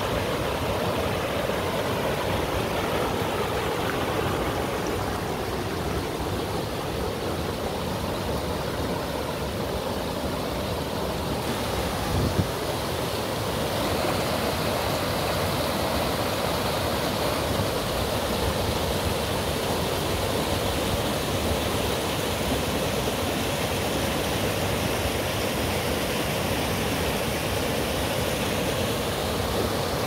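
River rapids: water rushing steadily through a shallow, rocky run of river, with a single brief knock about twelve seconds in.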